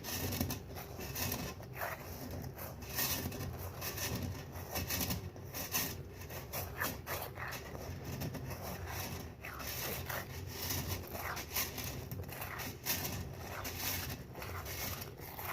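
Irregular rubbing and scraping as a cloth sock full of plastic airsoft BBs is worked around in a bowl of soapy water.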